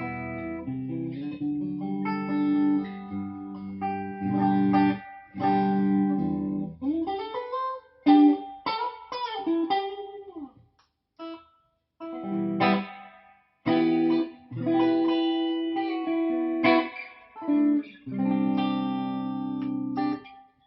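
FGN JOS-FM-M electric guitar played on a clean tone through a Peavey Bandit 112 combo amp: chords and picked single-note phrases, with notes bent up and down in pitch around the middle, broken by a few short stops.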